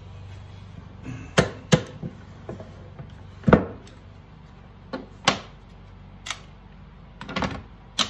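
Plastic one-handed bar clamps (Irwin Quick-Grip) being released and taken off a glued wooden box, then knocked down onto a workbench: a string of sharp clicks and knocks, about eight in all, the loudest about three and a half seconds in.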